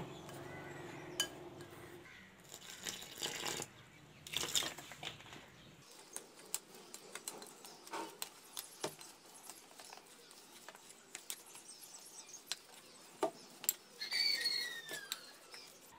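Metal spoon stirring a dry flour-and-onion mix in a glass bowl: scattered light clicks and short scrapes against the glass. A bird chirps briefly near the end.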